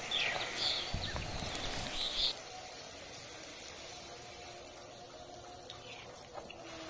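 Faint sizzle of hot oil as a luchi deep-fries and puffs up in a kadai. It drops to a quieter hiss about two seconds in.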